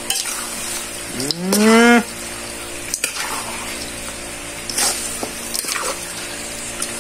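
A metal spatula stirring duck pieces in a wok, with sharp scrapes and clicks against the pan, over a steady low hum. About a second in, a single loud rising call lasting under a second, mooing like a cow, stands out above the stirring.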